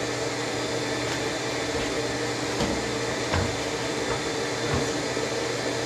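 A steady mechanical hum from a running machine, with a few faint knocks.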